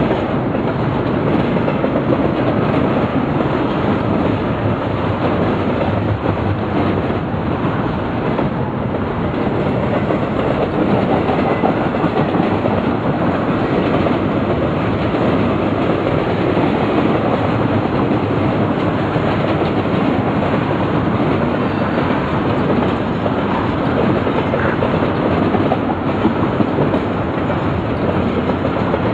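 Norfolk Southern intermodal freight train's double-stack container cars rolling past steadily: a continuous noise of steel wheels on rail, with no horn or engine standing out.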